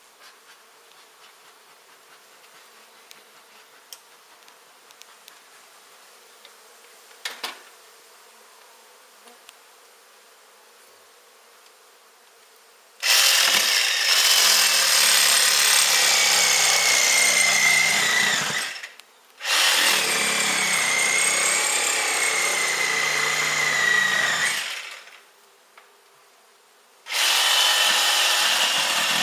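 Power saw cutting in three runs of several seconds each, starting about halfway through, its motor whine wavering in pitch. Before that, faint buzzing of honey bees and a few light clicks.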